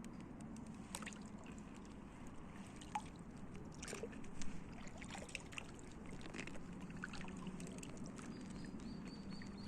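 Kayak paddling on calm water: small splashes and water dripping off the paddle, scattered irregularly, with the loudest splash about four and a half seconds in.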